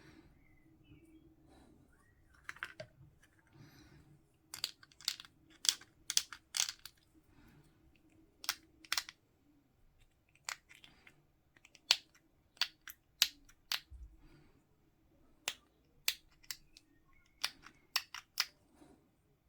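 Sharp, irregular clicks and snaps of hard plastic: plastic miniature parts being snipped from the sprue and handled, some in quick little clusters of two or three.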